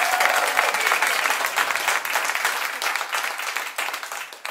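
Crowd applauding and cheering, many hands clapping at once, fading out near the end.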